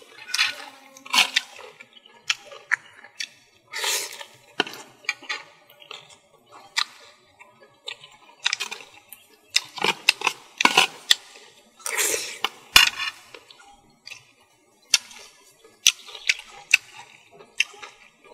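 A person eating fish with his fingers and a spoon, with wet chewing and lip-smacking and irregular sharp clicks of a spoon on a metal plate.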